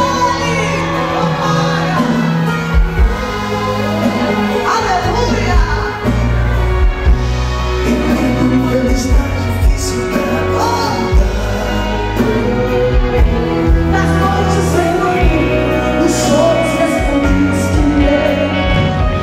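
Live gospel worship music: a woman singing into a microphone over a band with drums, amplified through a stage sound system.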